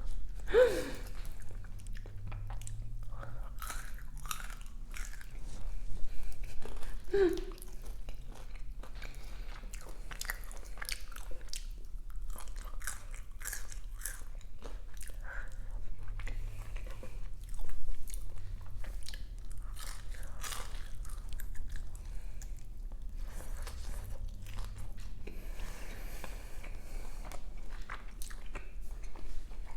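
Close-miked eating of Jollibee fried chicken: repeated bites into the crispy breading and wet chewing with crackling mouth sounds, louder bites about six seconds in and again past halfway.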